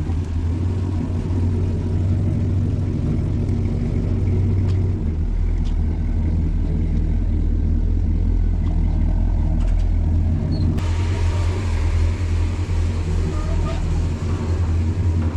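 A car engine running at a steady idle with a low rumble. A hiss joins it about eleven seconds in.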